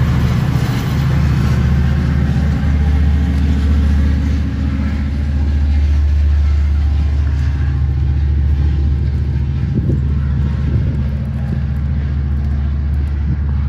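EMD F59PHI diesel locomotive hauling a bilevel Sounder commuter train away: a steady, loud low rumble of the engine and rolling train that stays fairly even throughout.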